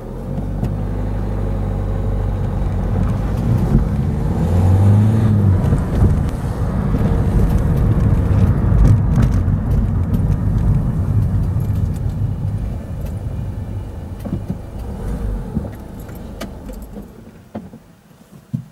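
Car being driven along a road and slowing to a stop, its engine and road noise fading away near the end, followed by a single sharp click.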